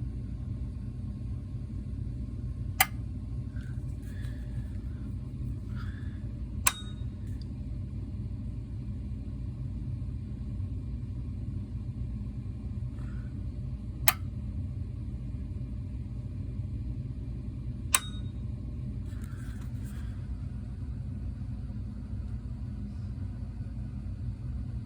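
Relay in a CD&F siren controller cabinet clicking four times, a few seconds apart, as the controller cycles a signal with no siren connected. A steady low rumble runs underneath.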